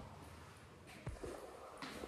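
Quiet room with two faint soft thumps, one about a second in and a weaker one near the end.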